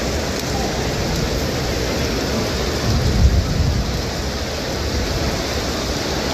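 Steady rain falling on wet stone paving, a continuous even hiss, with a brief low rumble about halfway through.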